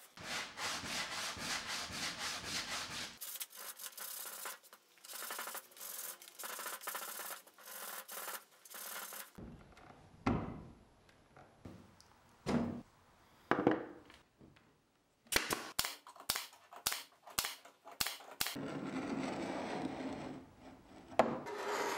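Carbide paint scraper rasping over a wooden dresser, stripping old paint and finish from the veneer. The strokes come quick and rhythmic at first, then as short separate scrapes with pauses between them, then a steadier stretch of scraping near the end.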